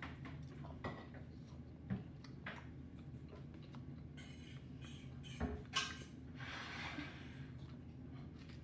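A spoon clinking and scraping against a cup of Dippin' Dots beaded ice cream, a scattering of short clicks with the two loudest close together past the middle, over a steady low hum.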